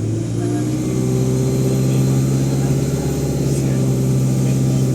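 ADL Enviro200 bus's diesel engine pulling under load, its note climbing slightly, with a high turbocharger whine above it.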